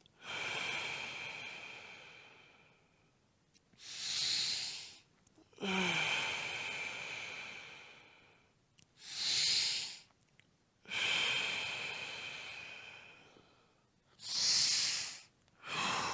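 A person taking slow, deep breaths, about one every five seconds, as a breathing exercise. Each breath is a short loud draw of air followed by a longer, slowly fading outbreath with a faint whistle in it.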